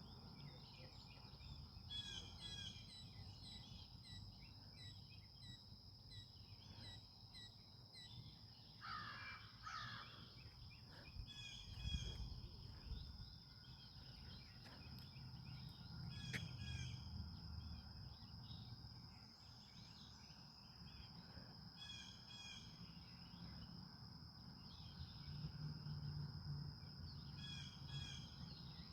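Faint outdoor bird sounds: short runs of repeated chirping notes every few seconds over a steady high-pitched insect drone, with a louder call about nine seconds in.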